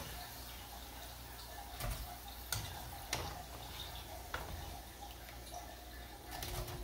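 Oil sizzling as banana and glutinous-rice dough rings deep-fry, with several sharp clicks of metal tongs against the cookware as the rings are turned and lifted out.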